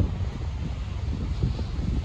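Wind buffeting the microphone: an uneven, gusting low rumble.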